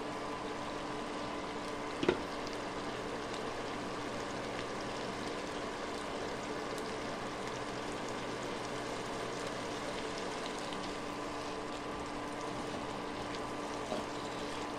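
Corned beef and garlic frying in a nonstick pan: a steady sizzle over a constant hum. A sharp knock about two seconds in and a smaller one near the end, the spatula striking the pan.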